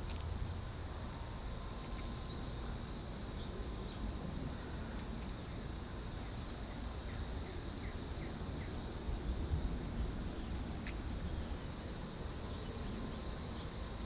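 Cicadas singing in a dense chorus: a steady, continuous high-pitched buzz that does not let up.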